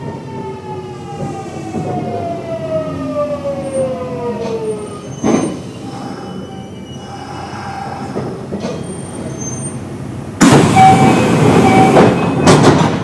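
Kintetsu 1026 series train's Hitachi GTO-VVVF inverter whining in several tones that fall steadily in pitch and fade out about five seconds in, as the train brakes for a station. Quieter running rumble follows, then about ten seconds in a sudden loud hiss lasting a couple of seconds.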